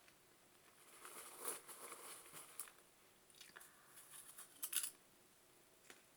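Faint crisp crackling and rustling in two spells: popcorn being handled and crunched while eaten.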